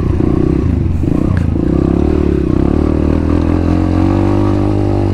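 Dirt bike engine running under the rider at a steady, moderate speed, its pitch dipping and then rising a little in the second half as the throttle changes.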